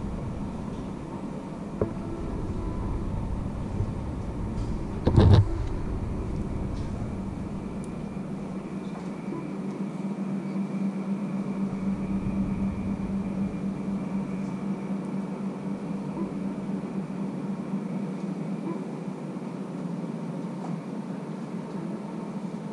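Steady hum of a vehicle with a constant low tone, a deep rumble that comes and goes, and one loud thump about five seconds in.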